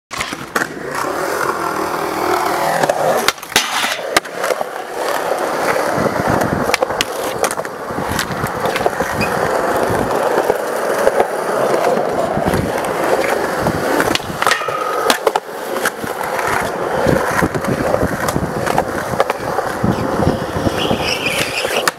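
Skateboard wheels rolling on smooth concrete in a steady rumble, with sharp clacks and knocks of the board at irregular intervals.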